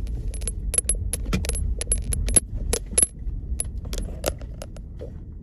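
Car rolling slowly across a gravel lot: a low rumble with many sharp, irregular clicks and small pings of stones crunching under and flicking off the tyres.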